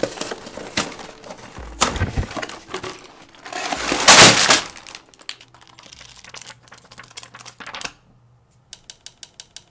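LEGO set box being opened: sharp clicks and cardboard sounds, then plastic bags of bricks sliding out with a loud crinkling rush about four seconds in, followed by lighter rustling. Near the end, a quick run of about ten sharp clicks.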